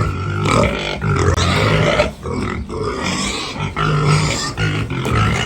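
Pigs grunting loudly and repeatedly at feeding time, in bouts with short breaks between.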